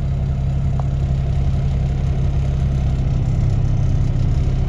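Dump truck's diesel engine running steadily at low revs, a continuous low hum heard from inside the cab.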